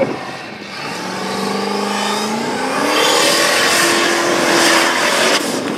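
Formula Offroad buggy's engine revving hard, its note climbing through the first few seconds and then holding high before easing off near the end. The buggy's tyres are spinning and throwing dirt.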